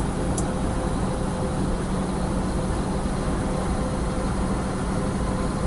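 Semi truck's engine and road noise heard from inside the cab while cruising at highway speed: a steady drone with a constant low hum.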